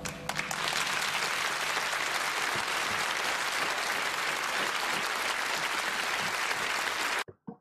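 Theatre audience applauding, a dense, steady clapping that cuts off suddenly near the end; the act's music stops as it begins.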